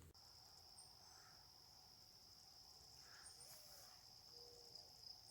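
Faint, steady, high-pitched insect trill that begins suddenly right at the start and continues unbroken, with a few faint short chirps above it.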